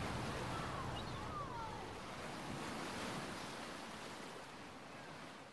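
Beach ambience: a steady wash of surf with some wind, with a couple of faint distant calls about a second in, slowly fading out near the end.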